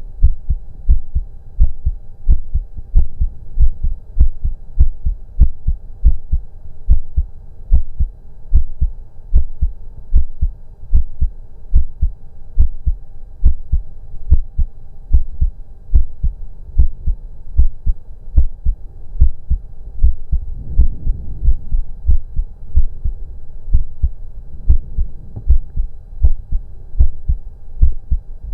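A person's heartbeat heard through a stethoscope: steady, regular lub-dub thumps, low and loud, over a faint steady hum.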